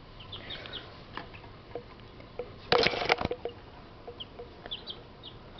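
Baby chicks peeping in short, faint, high chirps. About three seconds in there is a brief burst of rustling and scrabbling, and a few light clicks are scattered around it.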